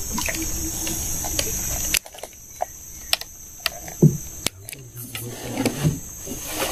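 Steady high-pitched chorus of insects, with a few faint clicks over it.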